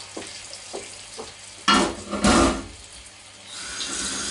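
Pork loin slices sizzling quietly in a hot frying pan. About halfway through come two loud clattering knocks, and near the end a kitchen tap starts running.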